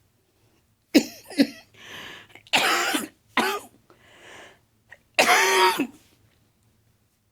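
A woman in a coughing fit: about five harsh coughs with quieter gasping breaths between them, ending in a longer hacking cough.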